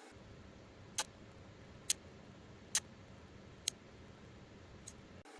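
Scissors snipping through a soft thermal pad: five sharp clicks about a second apart, the last one fainter, over a faint steady background hum.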